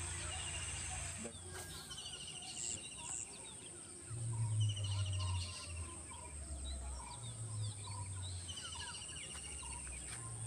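Birds calling in short repeated trills and chirps over a steady high-pitched insect drone, with bursts of low rumble now and then.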